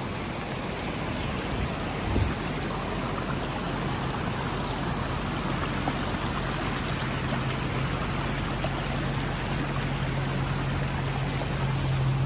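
Fast, muddy snow-melt floodwater of an overflowing creek rushing past, a steady roar of water. Under it, the low hum of an idling vehicle engine that grows louder toward the end, and a brief thump about two seconds in.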